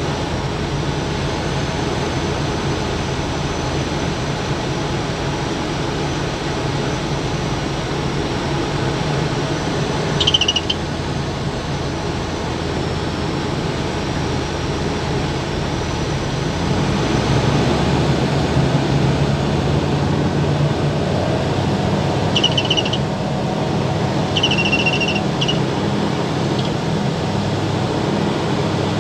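Propeller-driven light aircraft's engine and propeller drone heard inside the cockpit. The engine note rises and gets louder a little past halfway as power is added for the climb-out. Short high beeping tones sound once about a third of the way in and a few times near the end.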